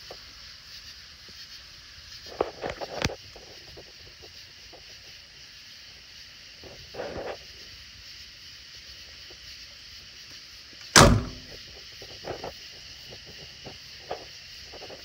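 Chevrolet C10 pickup's door shut about eleven seconds in: one loud sharp bang. Smaller clicks and knocks come a few seconds earlier, over a steady high hiss.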